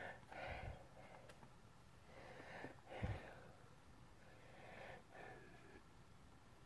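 Near silence: room tone with a few faint breaths and a soft bump about three seconds in.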